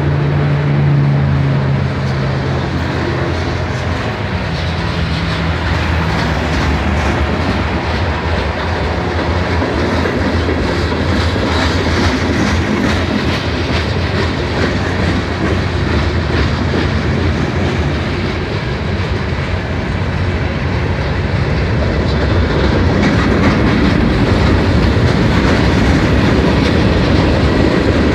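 Freight train cars of a Norfolk Southern mixed manifest rolling past, steel wheels clattering steadily over the rail joints. A low steady hum in the first few seconds fades away, and the rolling grows a little louder near the end.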